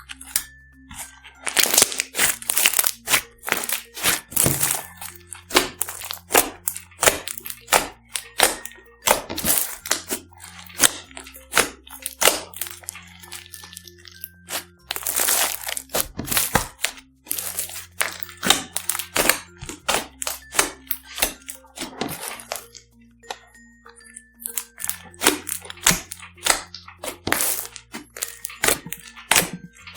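Slime being squeezed and worked by hand, giving off many sharp crackling and crunching pops, over light background music with a bass line.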